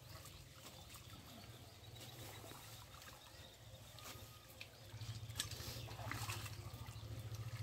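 Faint trickling and dripping water, with a low steady hum underneath that grows louder about five seconds in.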